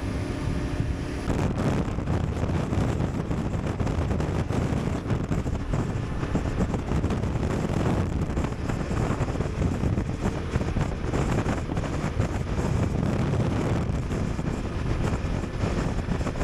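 Motorcycle on the move, its engine running under heavy wind rushing across the microphone. The engine's steady hum is clear only for about the first second before the wind noise swamps it.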